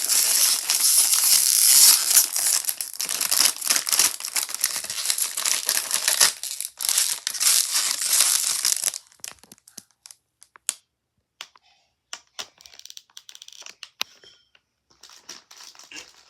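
Crinkly packaging being handled, crumpled and torn open for about nine seconds, then only a few scattered small clicks and rustles as the crinkling stops.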